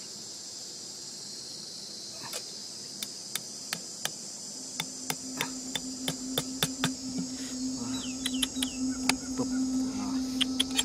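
Sharp knocks of a hatchet's back tapping wooden stakes into the ground, a few at first and coming faster from about five seconds in, over a steady high buzz of insects. A low steady hum joins about five seconds in.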